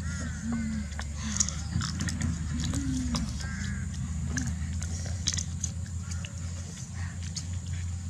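Children eating: scattered crunchy bites and chewing clicks, with a few short animal calls in the background during the first half.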